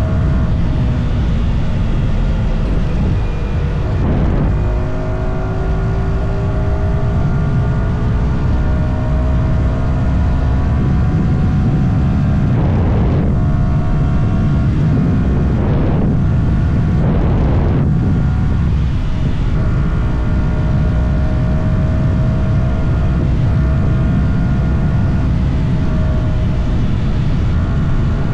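Yamaha R125's single-cylinder four-stroke engine running under way on its stock exhaust. Its pitch climbs slowly, with a few short breaks, over a steady low rushing noise.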